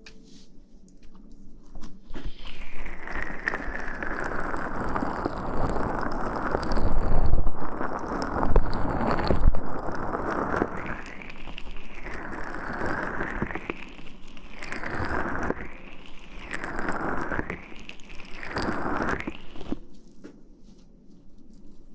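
Close-up rustling and rubbing right on the microphone, an ASMR trigger. There are a couple of low thumps near the middle. In the second half the rubbing comes as slow back-and-forth swishes, about one every second and a half, and it stops suddenly near the end.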